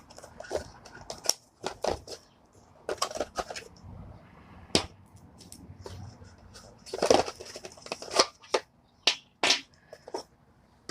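Packaging of a boxed video doorbell being opened and handled: scattered rustling and crinkling with sharp clicks and taps, busiest about seven seconds in.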